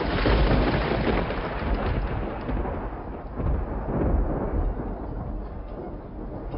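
A deep, thunder-like rumble with a hiss over it. It starts suddenly, is loudest at the start, and eases off over a few seconds.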